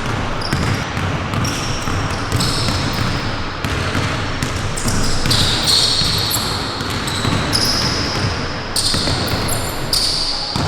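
Basketball being played on an indoor court: a ball bouncing, with short high squeaks many times over from sneakers on the hardwood.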